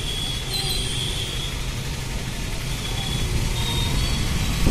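Steady street traffic noise, mostly a low engine and road rumble from passing vehicles, growing a little louder near the end.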